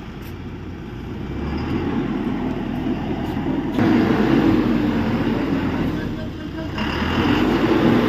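Truck's diesel engine running, with indistinct voices. The sound becomes louder about halfway through.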